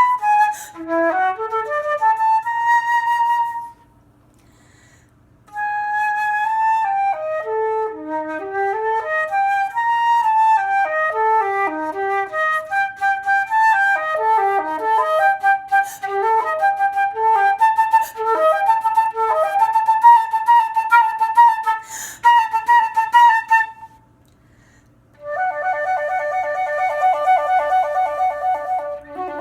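Solo flute playing quick runs of rising and falling notes, broken by two short pauses. Near the end it holds a wavering note.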